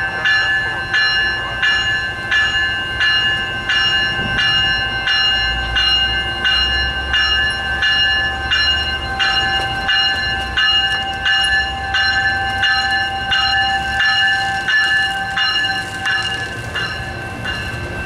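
Metrolink commuter train's warning bell ringing steadily, about two strikes a second, as the train pulls out of the station, stopping about a second before the end. A low rumble from the train swells partway through.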